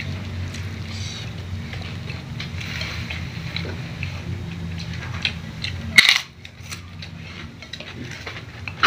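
Eating sounds of a meal taken by hand: crunching and bites with light clinks of plates, and a sharp loud crack about six seconds in and another near the end. A steady low hum runs under the first six seconds and stops suddenly.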